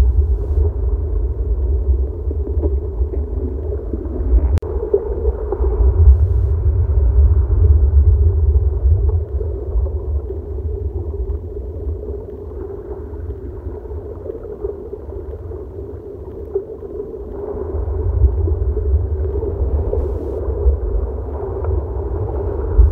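Ocean surf heard from underwater through a submerged phone's microphone: a muffled low rumble of water that swells and eases, rising about six seconds in and again near the end.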